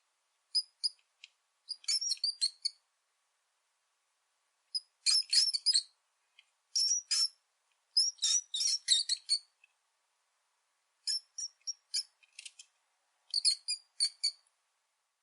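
Rat squeaking: quick runs of short, very high-pitched squeaks in about six clusters, with brief silent pauses between them.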